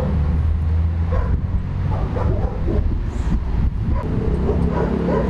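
Dogs barking and yipping in short repeated calls, over the low hum of a running vehicle engine that grows stronger about four seconds in.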